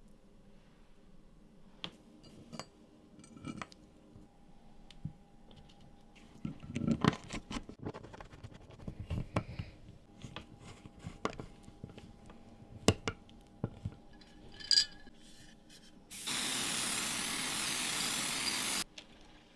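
Small metal screws and sleeves being handled and a small screwdriver driving screws into a knife's stabilized-birch handle scales: scattered light clicks and scrapes. Near the end an aerosol can sprays the handle in one steady hiss of about two and a half seconds, the loudest sound.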